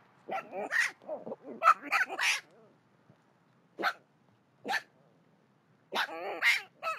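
Baby javelina (collared peccary) calling in short, sharp, unhappy-sounding cries: a quick run of them in the first couple of seconds, two single cries a second apart, then a few more near the end.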